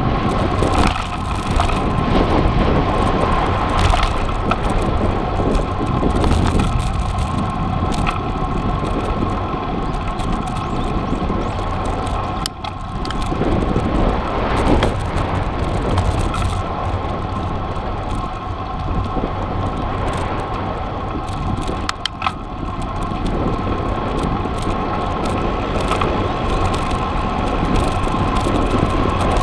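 A cross bike being ridden on a road: steady wind noise and tyre-and-road rumble with a constant tone, and a few sharp rattling knocks from the bike over bumps.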